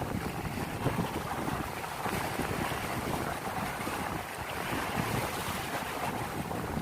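Wind buffeting the microphone over the wash of a rough, choppy sea: a steady rushing noise with an uneven, gusty rumble underneath.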